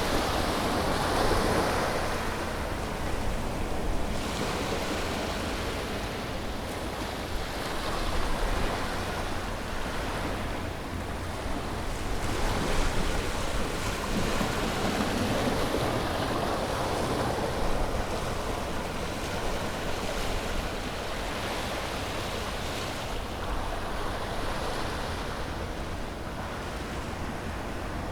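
Sea waves breaking and washing onto a beach, one surge every few seconds over a steady rush of surf, with some wind.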